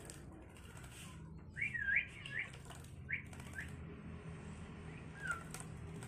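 Javan myna bathing in a shallow tray of water, its wings splashing the water several times. A few short rising chirps come about two seconds in, and one falling note near the end.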